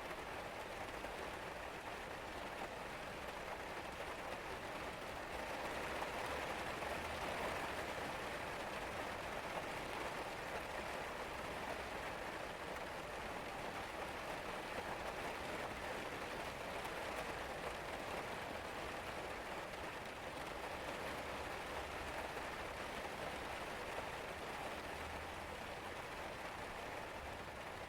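Steady rain falling, an even hiss of many drops, a little heavier about six to ten seconds in.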